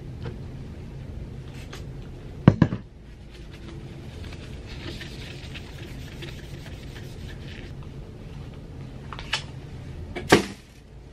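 Desk handling sounds: two sharp knocks on the desk, then a soft rubbing as a phone screen is wiped with a tissue, and near the end a click and a loud knock as the phone case's packaging is thrown into a bin.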